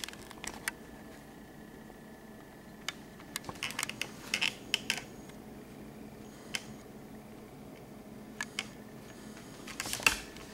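A metal spoon clicking and scraping against a ceramic serving bowl and a glass mixing bowl as spaghetti squash is dished up: scattered light clinks, in a cluster about four seconds in and again near the end, over a faint steady hum.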